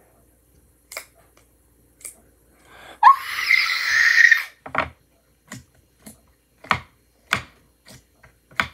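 A young girl's loud crying wail, about three seconds in and lasting about a second and a half, rising in pitch at the start. A string of short, sharp sounds follows.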